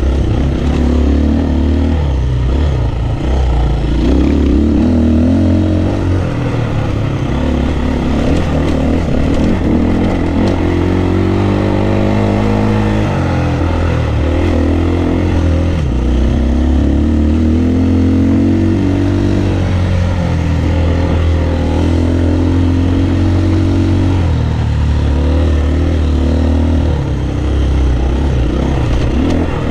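Dirt bike engine running under constantly changing throttle on a rough trail, its pitch rising and falling over and over as the rider accelerates and backs off.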